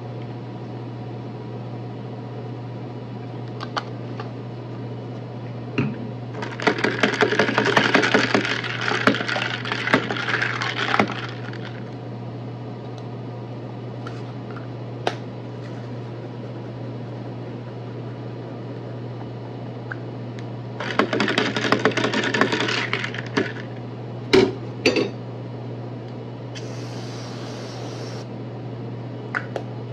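A metal spoon stirring ice in a tall cup of iced coffee, the ice rattling against the spoon and cup in two bouts, followed by a couple of knocks. Near the end comes a short hiss as cold foam creamer is sprayed from an aerosol can onto the drink, over a steady low hum.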